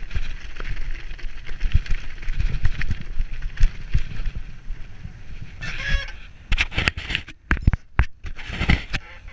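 Mountain bike rattling and rumbling over rocky, stony ground at speed, with wind and tyre hiss. About six seconds in comes a brief honking squeal, then a series of loud knocks and scrapes with short silent gaps as the camera is thrown skyward, and another short squeal near the end.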